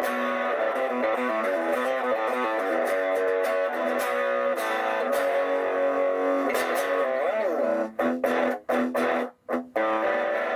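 Aria Pro II RS Wildcat electric guitar being played: ringing chords and picked notes, with a note bent up and back down about seven seconds in. After that come short, choppy chords with brief silent gaps between them.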